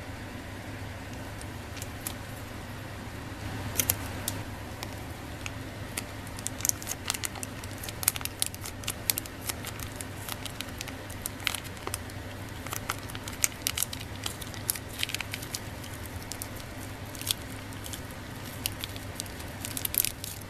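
Plastic sachet of miso ramen soup base crinkling and being torn open, then squeezed out into a pot of broth, giving many small sharp crackles and clicks from about four seconds in. A steady low hum runs underneath.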